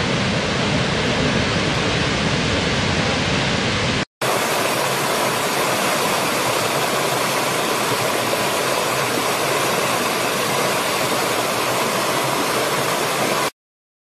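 Steady roar of a large waterfall, cut off about four seconds in. Then the rushing and splashing of a small rocky stream, which stops abruptly near the end.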